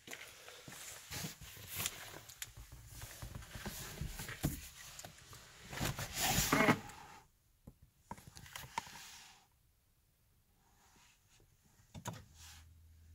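Rustling, scattered clicks and knocks of someone moving into a car's driver seat with a phone in hand, loudest about six to seven seconds in, then mostly quiet. A faint low hum comes on near the end.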